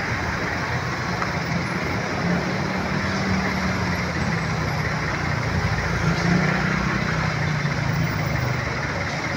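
Road traffic: a steady wash of vehicle noise, with a low engine drone that comes in about two seconds in and fades near the end.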